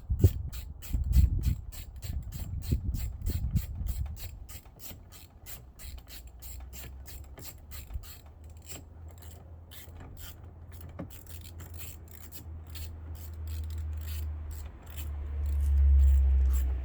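Ratchet wrench with a 10 mm socket clicking steadily, about three to four clicks a second, as it tightens the screw that holds a car door's lock cylinder. A few knocks come in the first few seconds, and a low rumble swells near the end.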